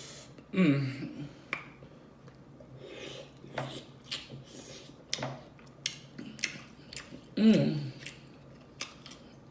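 Close-up eating sounds from a person eating mussels in sauce: wet chewing and lip smacking with scattered sharp clicks. Two short, falling 'mm' sounds of enjoyment come about half a second in and about seven and a half seconds in, the loudest moments.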